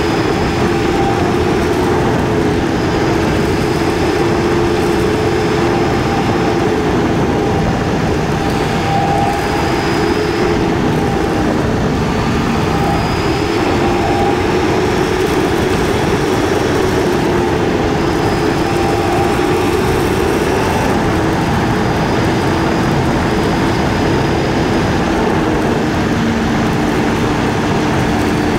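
KTM 250 Duke's single-cylinder engine running at cruising speed, its note drifting gently up and down with the throttle, over a steady rush of wind and road noise. The recording is played at double speed, which raises the pitch.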